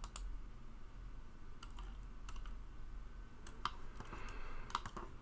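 Scattered sharp clicks of a computer mouse picking points in a drawing program, about a dozen of them, several in quick pairs. A faint steady low hum runs underneath.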